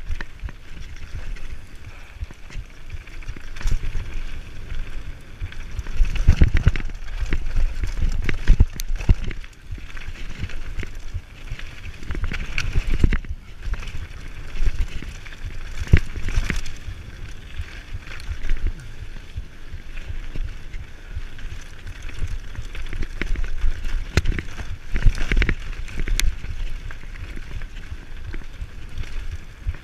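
Mountain bike riding fast down a rough dirt and gravel trail: a continuous tyre rumble and rattle from the bike, broken by sharp knocks as it hits bumps.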